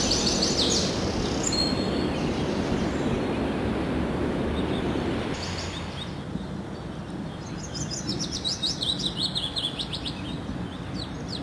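Small songbirds chirping and singing: a few high chirps at the start, then a fast, dense run of chirps in the second half. A steady outdoor hiss sits underneath and drops about halfway through.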